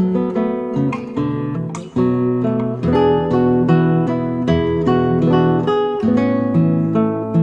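Background music: strummed acoustic guitar playing a run of chords.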